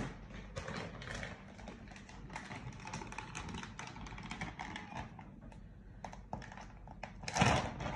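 Quick, irregular small clicks and rustling from handling the grated Gruyère for the lasagna topping, with a louder burst of noise near the end.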